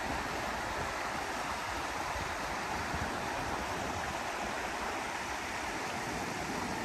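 A babbling brook: a steady, even rush of running water.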